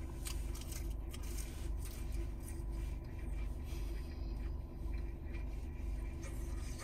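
Steady low rumble of a car driving, heard from inside the cabin, with a few faint rustles.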